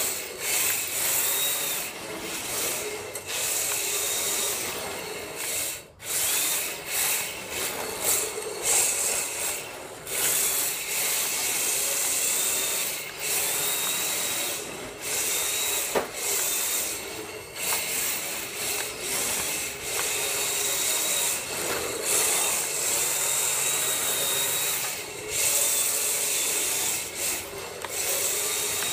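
HPI Sprint 2 Sport RC drift car running on concrete: its electric motor whines up again and again with the throttle while the hard drift tyres scrub and hiss as they slide, in long runs broken by brief lifts off the throttle.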